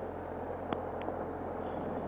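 Triumph Explorer XC's three-cylinder engine running on a helmet-mounted microphone, with a steady rush of wind and trail noise, and two short clicks near the middle.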